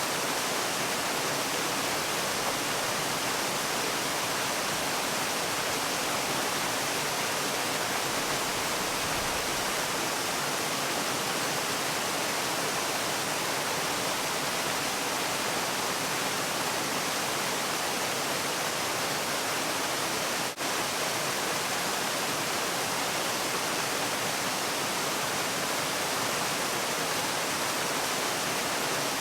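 Waterfall rushing in a steady, even hiss, with a momentary dip in level about two-thirds of the way through.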